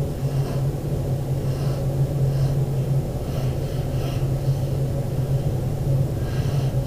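A steady low hum throughout, with a rumbling undertone. Over it come faint, short scratches of a pencil drawing on paper, about six of them at uneven intervals.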